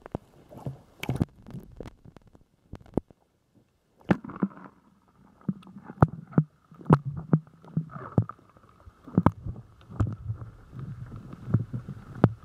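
Muffled water sloshing and gurgling around a camera held half-submerged at the sea surface, with sharp irregular clicks and knocks. It goes almost silent for a moment about three seconds in, then the sloshing picks up again.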